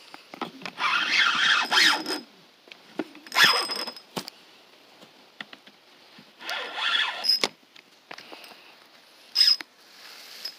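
Spinning fishing reel whirring and squealing in four short bursts, the longest about a second and a half near the start, while a peacock bass is on the line.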